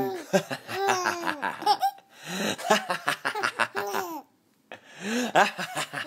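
Baby boy laughing hard in runs of quick, high-pitched laughs, with a short break for breath about four seconds in.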